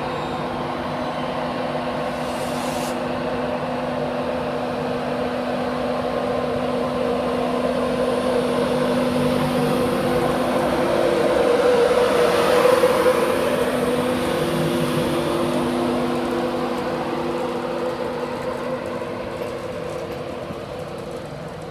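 Class 91 electric locomotive and InterCity 225 coaches moving slowly past along the platform: a steady running hum with a few held tones over wheel noise. It grows louder to a peak about halfway through, then fades as the train moves on.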